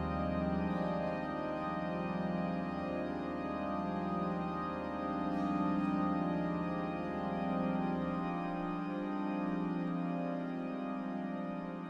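Sydney Town Hall's 1890 William Hill and Son grand pipe organ holding a dense sustained chord, its level slowly swelling and ebbing; a low bass note drops out about eight seconds in.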